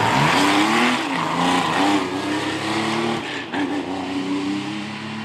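Rally car engine revving hard, its pitch climbing and dropping again several times as it is driven through a corner and up the gears.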